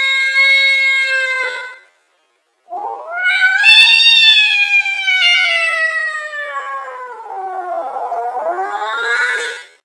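Angry domestic cat yowling. A long, steady yowl ends about a second and a half in. After a short silence a second long yowl rises, then slowly falls and wavers before cutting off near the end.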